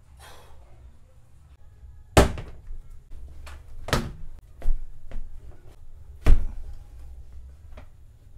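A few sharp thuds and lighter knocks on a wooden plank floor as shoes are set down and slipped on, the loudest about two seconds in and again a little past six seconds.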